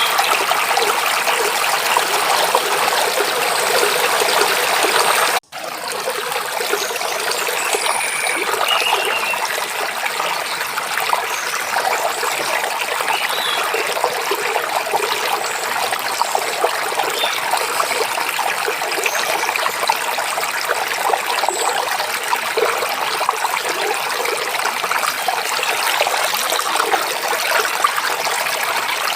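Forest stream babbling and rushing steadily over rocks, with a few faint bird chirps. The sound cuts out for a split second about five seconds in, then carries on a little quieter.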